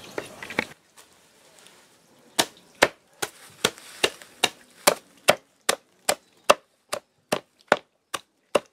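Stinging nettle stems being chopped with a blade onto a wooden board: evenly paced chopping strokes, about two and a half a second, that start a couple of seconds in.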